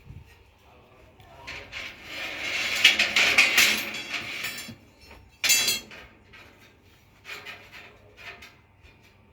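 Scraping and rubbing for about two seconds, then a short sharp scrape about halfway through, with scattered small knocks and clicks, typical of hands working a workpiece and tools.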